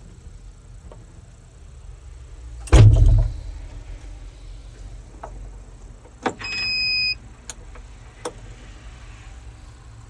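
Inside a skid steer cab: one loud thud with a short low rumble about three seconds in, then a click and a steady electronic beep of about half a second from the dash as the ignition key is turned, followed by two light clicks.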